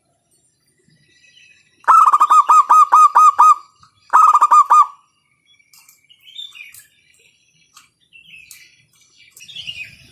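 Zebra dove (perkutut) singing its loud cooing song: a quick run of about eight repeated notes, then a shorter burst of four, with faint chirps of other small birds afterwards.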